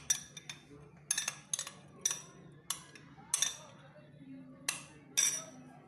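A spoon clinking against the sides of a container as shampoo is stirred for slime, with irregular sharp taps about one or two a second.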